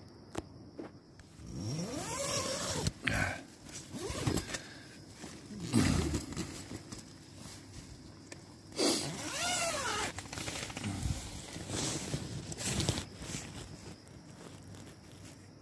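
Tent zipper pulled open in several strokes, each rasp rising and then falling in pitch as the pull speeds up and slows, with rustling of fabric between them.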